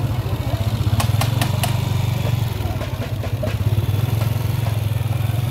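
Motorcycle engine running at low speed: a steady low drone, with a quick run of sharp clicks about a second in.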